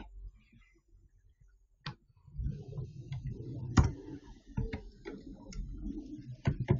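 Computer mouse clicks, then from about two seconds in an irregular run of mouse and keyboard clicks over a low rumble.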